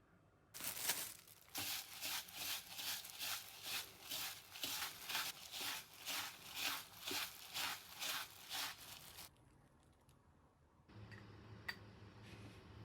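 Crisp, crunchy panko-crumb crust of a baked curry bread being sawn through with a knife, in regular strokes about two a second, stopping about nine seconds in. A faint low hum follows near the end.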